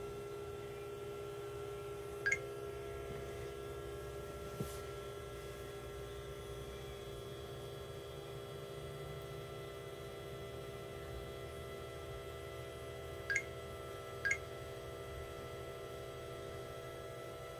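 Steady electrical hum made of several steady tones, with short electronic beeps once about two seconds in and twice near the end, a second apart, and a faint click between them.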